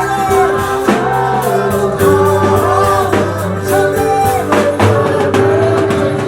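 Gospel song with singing over drum kit, bass and guitar, with a steady beat.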